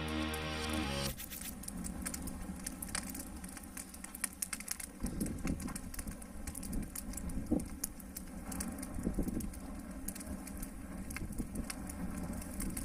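Wood fire of sticks and logs burning in a stone barbecue hearth, crackling with many small sharp pops at an uneven pace. Background music cuts off about a second in.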